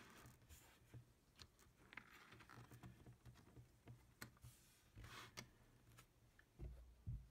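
Faint handling of a spiral-bound paper calendar: soft clicks and brief paper rustles as a page is turned and laid flat, with a couple of low bumps near the end.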